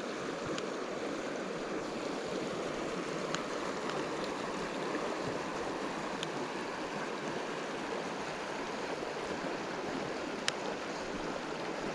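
Steady rushing of the flowing Provo River, with a few faint clicks, the clearest about ten seconds in.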